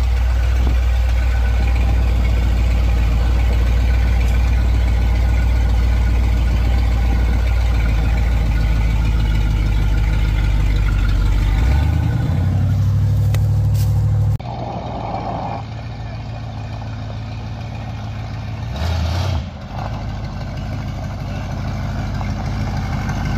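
Buick 455 V8 in a 1955 Buick Super running steadily while the car is driven, heard close from the driver's seat. About 12 seconds in the engine note changes and rises briefly. Then the sound cuts to the same car heard from outside, quieter.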